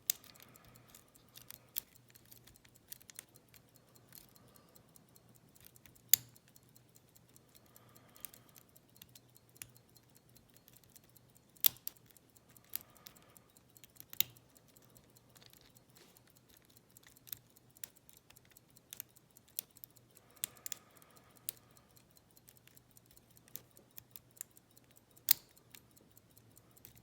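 Lock pick and tension wrench working the pins of a Schlage padlock fitted with spool and barrel security pins: irregular light metallic clicks and scratches, with a handful of sharper, louder clicks.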